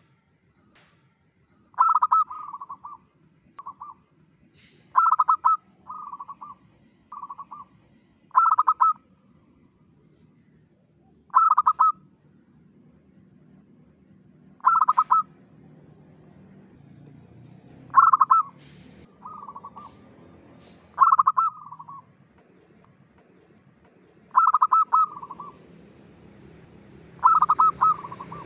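Zebra dove (local perkutut) singing: about ten short, rapid cooing phrases, each around a second long and some followed by a shorter extra note, repeating every three seconds or so.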